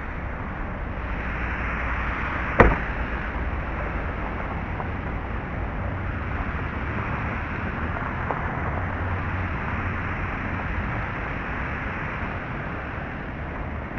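Steady rushing outdoor noise picked up by the built-in microphone of camera sunglasses, with one sharp knock about two and a half seconds in.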